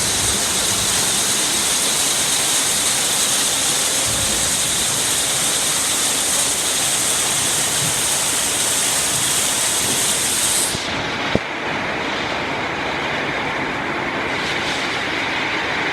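Steady, loud hiss of heavy rain. About eleven seconds in, the sound turns abruptly duller as its high end cuts off, and a single sharp click follows.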